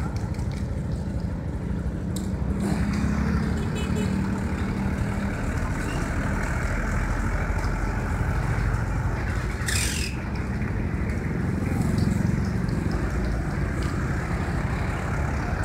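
Street traffic and vehicle engine noise, a steady low rumble, with one short hiss about ten seconds in.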